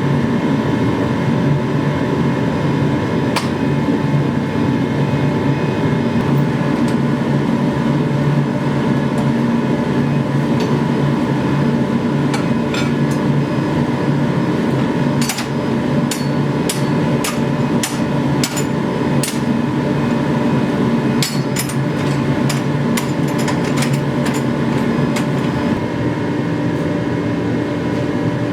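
Hammer blows on a knife blade being forged: one strike a few seconds in, then two runs of quick blows, about two a second, halfway through and again later. Under them runs a steady loud droning hum.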